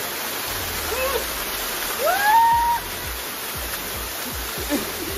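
Waterfall pouring onto rocks into a shallow pool: a steady rush of water. About two seconds in a short rising cry from a person's voice stands out as the loudest sound, with a shorter one about a second in.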